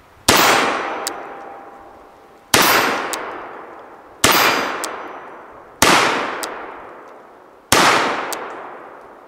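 Five shots from a reproduction 1851 Colt Navy cap-and-ball revolver loaded with 20-grain black powder charges and round balls over lubricated felt wads. The shots come every one and a half to two seconds, and each report echoes and dies away over a second or more.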